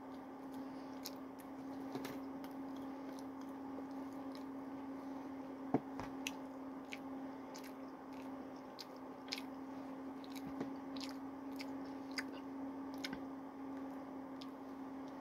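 Close mouth sounds of a man chewing a bite of a barbecue burger with onion rings: many small wet clicks, with a sharper click about six seconds in. A steady low hum runs underneath.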